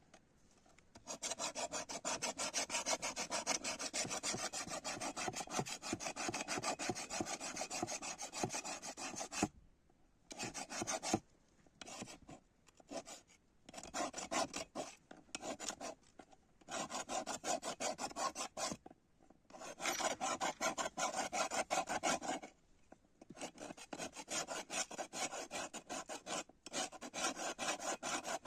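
Rapid rasping strokes of a hand file worked back and forth, in runs of several seconds broken by short pauses.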